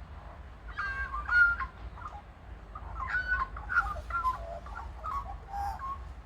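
A bird calling: a run of short pitched notes that jump up and down in pitch, starting about a second in and going on to near the end.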